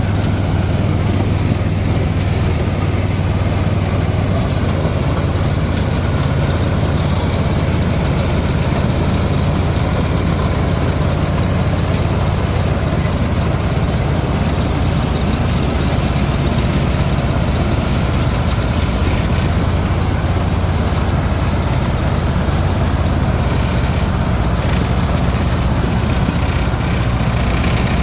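Farm tractor engine running at a steady speed, a constant low hum heard close up from the tractor.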